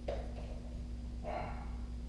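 A sharp click at the very start, then a dog giving one short whine a little over a second in.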